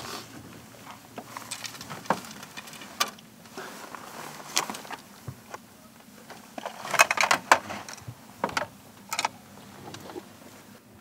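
Fishing tackle being handled while a rig is set up: irregular small clicks and light rattles, with a quick cluster of sharper clicks about seven seconds in and two more a little after nine seconds.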